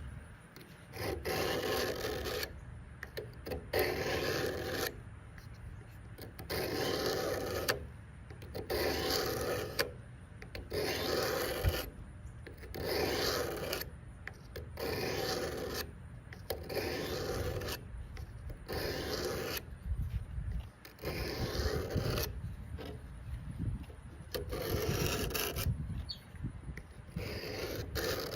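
A steel knife blade drawn in long strokes along a 350-grit sharpening rod, a rasping scrape about once every two seconds with short pauses between, grinding the edge to reprofile it and raise a burr.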